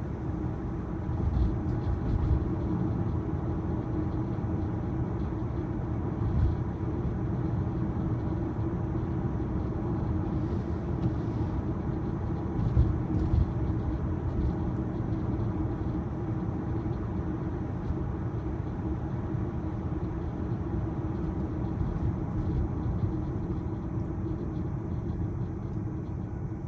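Road and tyre noise heard inside a moving 2023 Tesla Model Y, an electric car with no engine sound: a steady low rumble, with a few brief louder bumps about two, six and thirteen seconds in.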